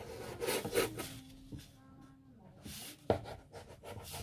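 Knife blade scraping and sliding along a countertop under a thin sheet of rolled pasta dough as it is lifted, with a sharp tap about three seconds in.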